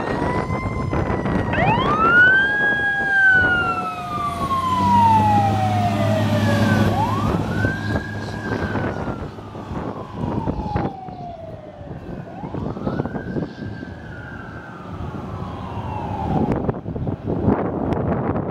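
Fire truck's Federal Q mechanical siren winding up and coasting down three times, each wail rising quickly and then falling slowly over several seconds. Wind buffets the microphone throughout.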